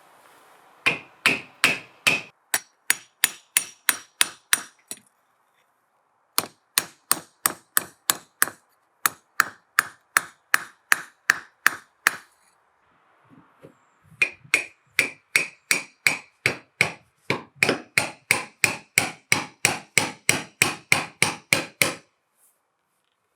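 Hammer blows in three long runs of quick, even strikes, about three a second, with short pauses between the runs; many of the blows ring with a high note.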